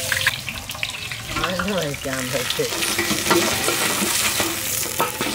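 Hot oil sizzling in a large iron wok as deep-fried whole broiler chickens are lifted out with a perforated metal skimmer, with a few sharp scrapes and clinks of the skimmer.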